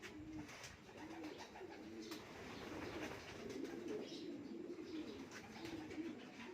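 Pigeons cooing in a loft: a steady run of soft, low, rising-and-falling coos, one after another.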